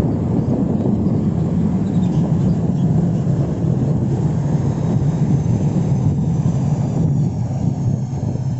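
Large bus's diesel engine running with a loud, steady low rumble.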